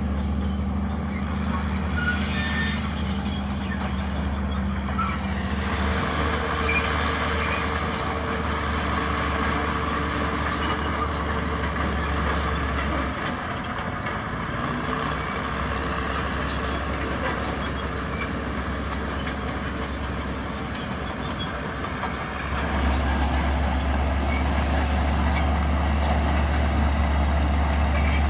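Heavy diesel construction machinery running. The low engine drone changes in pitch and strength several times, dipping a little after the middle and coming back stronger near the end, with occasional metallic clanks and hisses on top.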